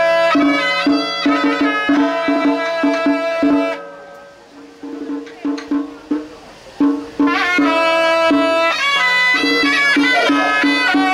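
Traditional Chinese music: a wind-instrument melody over a steady drone and a regular beat. It drops out about four seconds in, leaving only a few faint knocks, and comes back about three seconds later.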